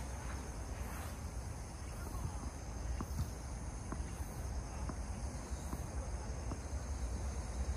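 Tennis ball bounced on a hard court before a serve, faint light ticks roughly a second apart, over a steady high-pitched insect drone.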